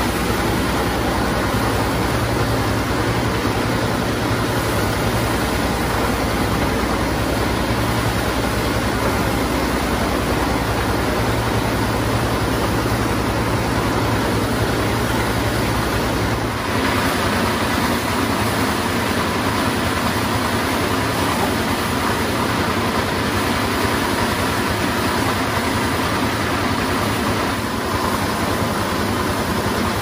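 Motorised paddy thresher running steadily: a small engine drives the threshing drum by belt while bundles of rice are pushed into the spinning drum, giving a continuous loud mechanical whir and rattle. About halfway through, the deep low beat fades and a steady higher hum comes in.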